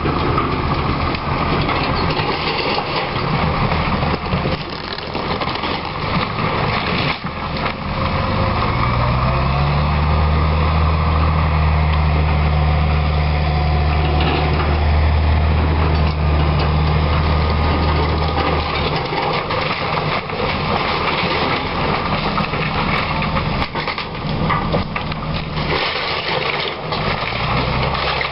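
Hitachi EX200LC excavator's diesel engine running, revving up about nine seconds in, holding high for about ten seconds, then dropping back. Near the end comes wood crunching as the excavator tears into the old frame house.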